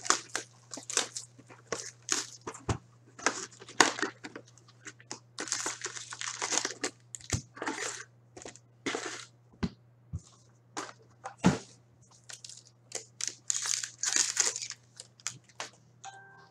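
A 2017-18 SP Authentic hockey card box and its packs being torn open and the wrappers crinkled: a quick, irregular run of sharp rips and rustles, with a few longer crinkling stretches. A steady low hum runs underneath.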